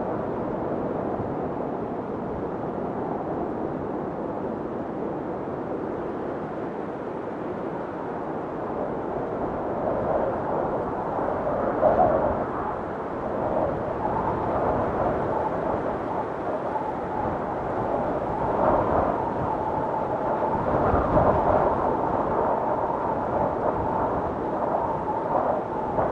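Wind of a snowstorm blowing steadily, picking up in stronger gusts from about ten seconds in, with a thin whistling note in the gusts near the end.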